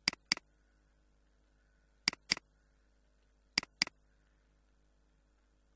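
Computer mouse button double-clicked three times, each double-click two sharp clicks about a quarter second apart, with the double-clicks spaced a second and a half to two seconds apart: selecting a word in a code editor.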